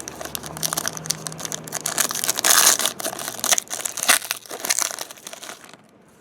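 Crinkling and tearing of a foil trading-card pack wrapper being ripped open and handled. It is loudest about halfway through and stops shortly before the end.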